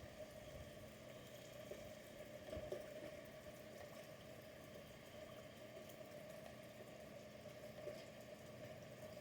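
Near silence: a faint steady hum with a few soft clicks.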